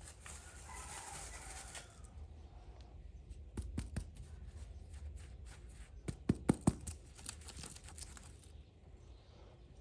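Hands handling small plastic toy play-set pieces: a soft rustle, then light clicks and taps, with a quick run of about five sharp taps a little after six seconds in.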